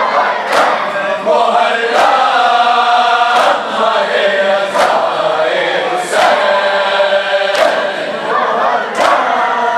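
A crowd of men chanting a noha (Shia mourning lament) together, with a sharp unison slap of hands striking bare chests (matam) about every second and a half, seven times.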